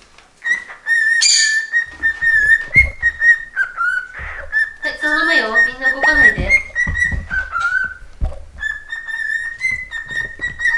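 High whistling that holds mostly on one note and steps up and down like a tune, with light chirps over it. A lower gliding call cuts in briefly about halfway through.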